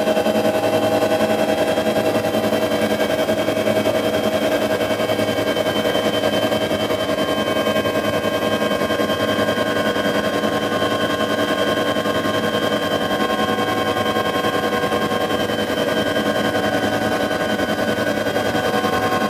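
Bell 205A-1 (Huey) helicopter heard from inside the cabin while climbing out after takeoff: the steady, rapid beat of the main rotor under the constant whine of the turbine engine and gearbox.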